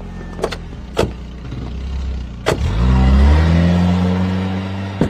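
White police jeep's engine idling, with a few sharp knocks of the officers climbing in. About two and a half seconds in, it revs up and pulls away, its pitch rising, then fading as it drives off.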